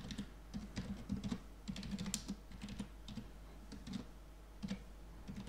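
Typing on a computer keyboard: a steady run of uneven key clicks.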